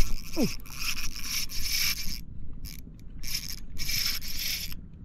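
Spinning reel being cranked to wind in line against a fish, its gears and rotor whirring in several bursts that stop and start. A short falling whistle sounds just after the start.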